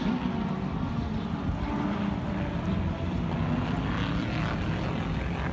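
A steady engine drone around a racetrack, with wind buffeting the phone's microphone.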